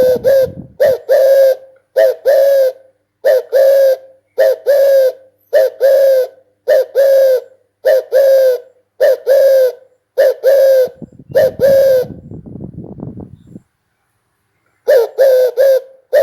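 Spotted dove cooing: short phrases of two or three quick coos, repeated about once a second. The calling stops for about four seconds near the end, with a low rumbling noise during the pause, then starts again.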